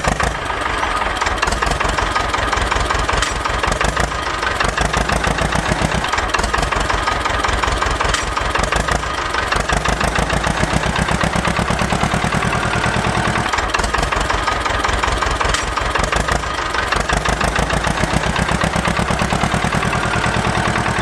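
Small engine of a homemade mini tractor running steadily, with a rapid, even chug of firing pulses and no change in speed.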